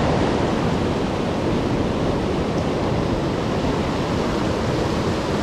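Steady rush of a fast-flowing mountain creek, loud and even.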